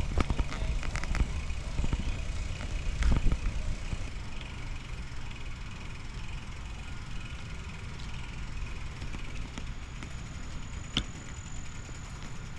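Bicycle riding on a trail, heard through a wrist-mounted action camera: a low wind rumble with rattles and clicks from the bike over the first few seconds, and a single sharp click near the end.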